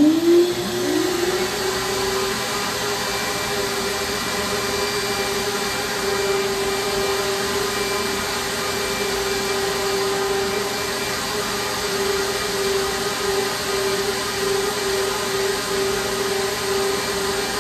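Hurricane vacuum pump (Black Box Vacuum Solutions) switched on: it spins up with a rising whine over the first second, then runs steadily with a constant whine and rushing air. It is pulling a sheet of MDF down onto the CNC vacuum table, which holds it rock solid.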